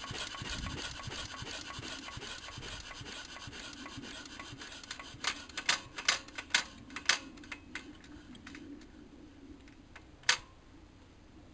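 Wolseley WD 8 single-cylinder side-valve petrol engine being shut down: its regular running fades away as it slows. A string of sharp clicks comes midway, louder than the engine, and one last loud click comes near the end.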